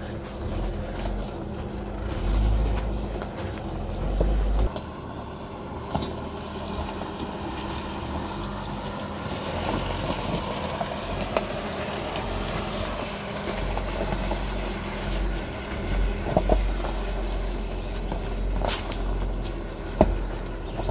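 Jeep Wrangler Unlimited's 3.6-litre V6 running low and steady as the Jeep crawls slowly past over rocks, its 33-inch tyres crunching over stones, with a few sharp cracks from rocks underneath.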